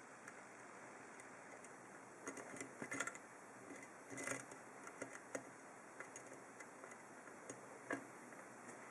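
Faint metallic clicks and scrapes of a hook pick working the pins of an ASSA 7-pin oval lock cylinder under a tension wrench. They come in scattered bunches, the busiest about three and about four seconds in, with single ticks later.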